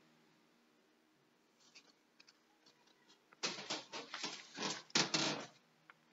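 Near silence with a few faint ticks, then about three and a half seconds in, some two seconds of loud, close rustling and scuffling in two bursts, like clothing or fabric brushing against the phone's microphone as someone moves and settles.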